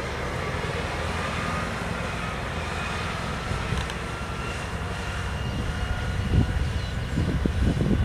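Airport fire engine's engine rumbling steadily as the crash tender drives slowly past, growing a little louder and rougher near the end.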